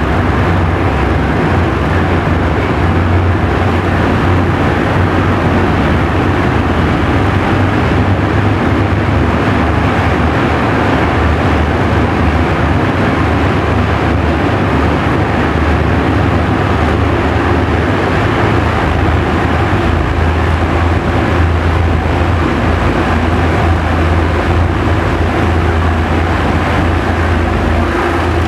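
Narrow-gauge diesel locomotive and train running steadily through a rock tunnel: a continuous low engine drone under a dense rumble of the moving train.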